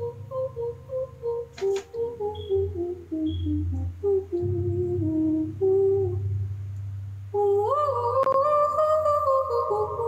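A woman humming a wordless melody in short, falling steps over a low steady tone. About seven seconds in she breaks into louder, held sung notes with a slight waver.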